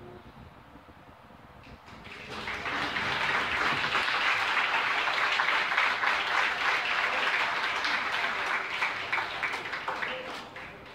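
Audience applauding, rising about two seconds in and dying away near the end.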